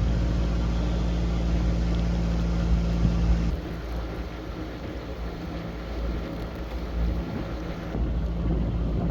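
Narrowboat's diesel engine running steadily, with wind buffeting the microphone. About three and a half seconds in, the sound drops suddenly to a quieter, gustier level.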